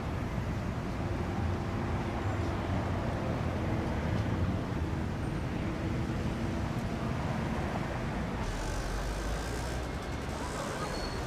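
Steady low rumble of road traffic. About eight and a half seconds in, a brighter hiss joins it.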